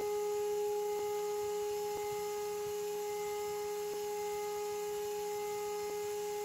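CNC router spindle whining at a steady high pitch as it mills out a small metal part, with faint ticks every second or two.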